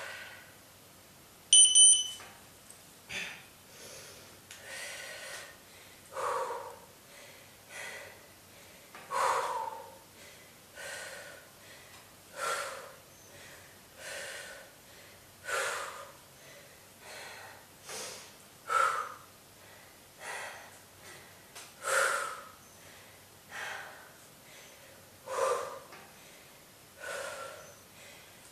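A woman breathing hard during exercise reps, a huffing breath about every one and a half seconds in a steady rhythm. About two seconds in, a short high electronic beep sounds.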